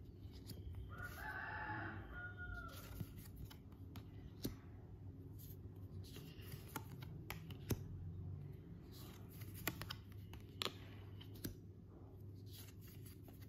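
Small affirmation cards being handled on a tabletop: faint light taps and clicks as cards are picked up, slid and laid down. About a second in there is also a faint drawn-out call in the background.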